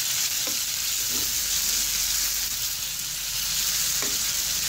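Marinated chicken pieces sizzling steadily in hot oil in a frying pan, with a few faint scrapes of a spoon stirring them.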